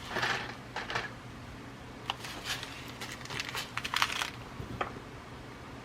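Packets of glass seed beads being handled and rummaged through: irregular rustling and small clicks, with a louder rustle at the start and a cluster of clicks about four seconds in, over a steady low hum.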